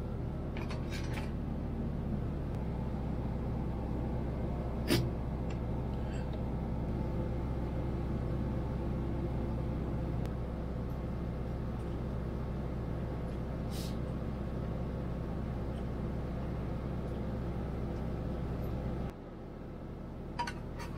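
A steady low mechanical hum with a few light clicks and knocks over it; the hum drops away suddenly near the end.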